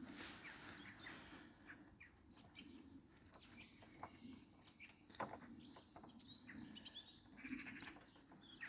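Faint birds chirping in the background, with a few light clicks and taps, the clearest about four and five seconds in.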